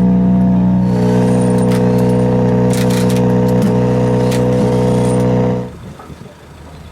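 Ford Fiesta R5 rally car's turbocharged four-cylinder engine held at steady revs, with a few sharp pops. It cuts off abruptly near the end.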